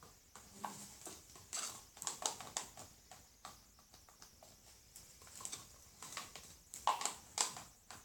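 Faint, irregular light clicks and taps from a plastic cup and wooden stick being handled while white paint is poured from the cup, a few each second, loudest about seven seconds in.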